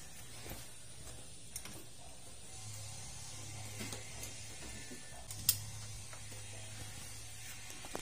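Scattered light metallic clicks and taps of a 10mm wrench working the bolts of a motorcycle engine's top cover, with one sharper click about five and a half seconds in. A faint low hum sits underneath.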